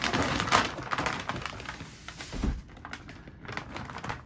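Brown kraft paper wrapping crinkling and rustling as a paper-wrapped suitcase is handled and lifted out of its cardboard box, loudest in the first second or so and fainter after. A dull bump about two and a half seconds in.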